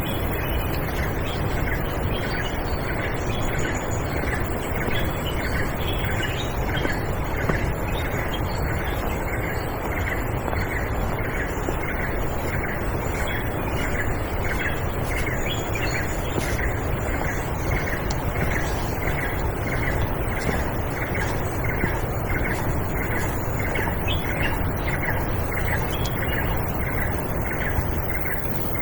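Steady rush of a forest stream, with a short animal call repeated about twice a second throughout.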